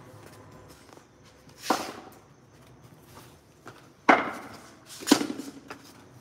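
Sharp knocks of a cricket ball and bat on a concrete pitch: one about two seconds in, then two more about a second apart near the end as the ball is bowled and the batsman swings.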